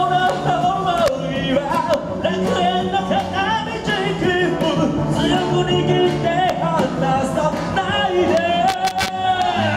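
Live band playing an upbeat pop-rock song on electric guitars, bass and keyboard, with women singing the melody into microphones.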